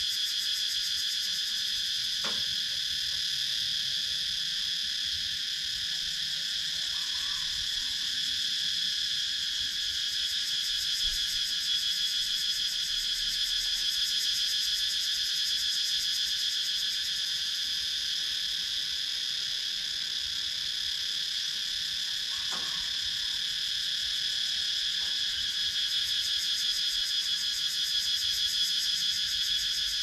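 Cicadas singing: a continuous high-pitched insect drone with a fast pulse, holding steady throughout.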